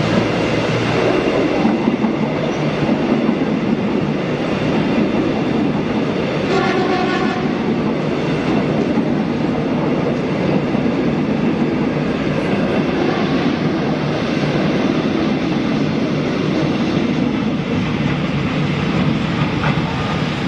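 A train running past in heavy rain: a steady rumble and rattle of wheels on the track mixed with the rain's hiss, with a brief pitched tone about six and a half seconds in.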